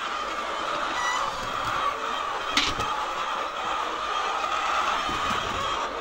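A flock of white laying hens clucking and calling steadily in a crowded shed, with one sharp knock about halfway through.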